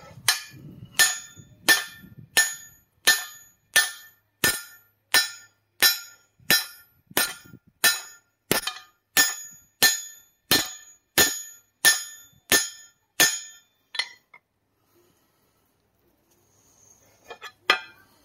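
Blacksmith's hand hammer striking the hot steel of a broad-axe head on the anvil: about twenty steady blows, roughly one and a half a second, each with a metallic ring. The blows stop about fourteen seconds in, and a couple of lighter clinks follow near the end.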